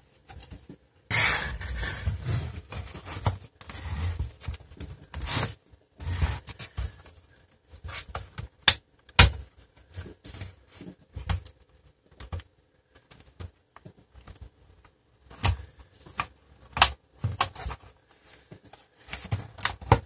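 Plastic case of an HP Pavilion 15 laptop being handled and turned over on a desk: irregular knocks, clicks and scraping. There are two sharp knocks about nine seconds in.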